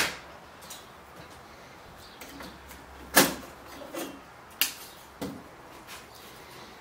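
Sharp clicks and clacks of a small metal part being handled and lifted off a flat-screen TV's sheet-steel chassis plate. There is one click at the start, the loudest clack about three seconds in, and a few lighter clicks after it.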